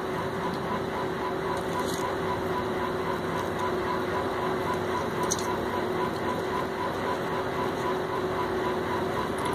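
Steady machine-like hum and hiss, with a low steady tone and a fainter higher tone pulsing a few times a second.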